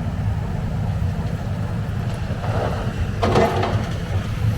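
Low, steady rumble of a machine engine running, with a brief clatter a little over three seconds in.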